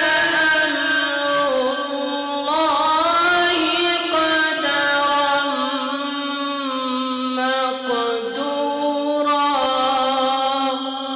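A young man's voice reciting the Quran in the melodic tajweed style into a microphone: long held notes with ornamented turns and glides, stepping from one pitch to the next between phrases.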